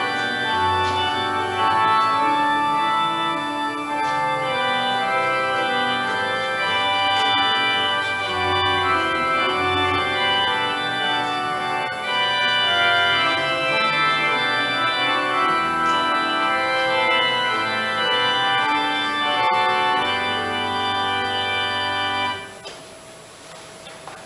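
Church organ playing a hymn in full sustained chords over a moving pedal bass. The final chord is released about 22 seconds in.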